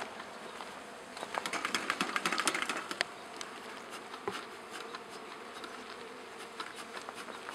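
Honey bees buzzing steadily around an opened hive, with a short run of sharp clicks and scraping about one to three seconds in.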